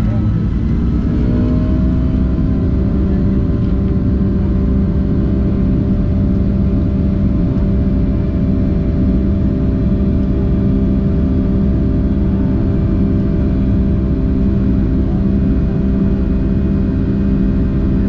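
Jet engine and airflow noise heard inside the cabin of a Boeing 757-200: a loud, steady low rumble with several steady hums, where a few of the tones glide upward about a second in and then hold level.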